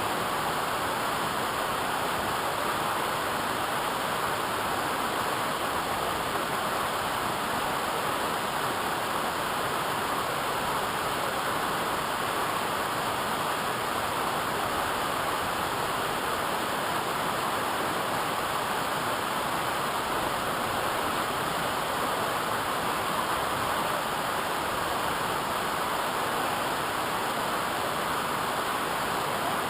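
Waterfall's falling water rushing steadily, an unbroken even roar with no let-up.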